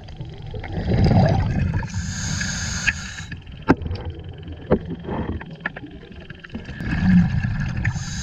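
A scuba diver breathing through a regulator, heard underwater: a low bubbling exhale about a second in, then a hissing inhale, and the same again near the end. A few sharp clicks come between the breaths.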